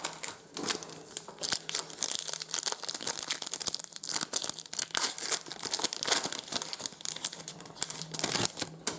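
Trading card pack wrapper crinkling and tearing as it is torn open and handled, with dense, irregular crackles and rustles throughout.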